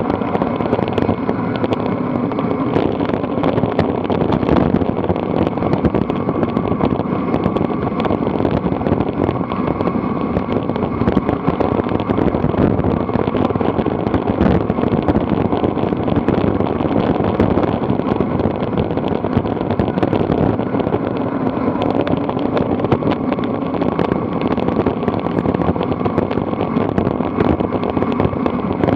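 Steady rush of wind and road noise picked up by a camera mounted on a bicycle descending a mountain road, with a constant scatter of small ticks and rattles from the bike and mount.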